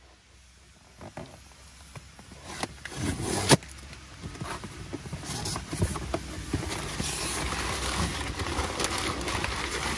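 Vehicle running, a steady rushing noise that builds up over the first few seconds, with scattered clicks and one sharp knock about three and a half seconds in.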